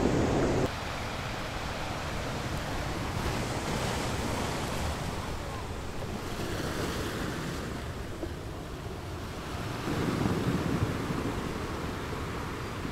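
Sea waves washing and breaking, a steady surf with slow swells, mixed with wind on the microphone. A louder surge comes about ten seconds in.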